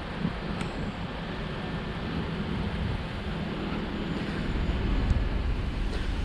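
Street traffic: vehicles going by with a steady low engine rumble and hum.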